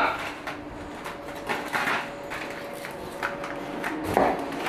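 Irregular knocks and clicks of kitchen work: a knife cutting apples on a wooden chopping board, over a faint steady hum.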